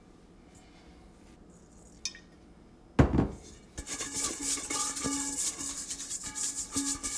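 A stainless steel mixing bowl set down with a thud about three seconds in, then a hand rubbing around its inside in quick strokes, the metal ringing faintly under the rubbing.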